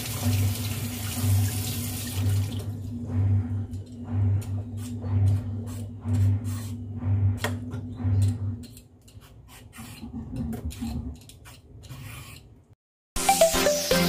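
Kitchen tap running as a mango is rubbed and rinsed under it in the sink. The stream stops about three seconds in, leaving scattered wet splashes and handling sounds. Electronic intro music starts about a second before the end.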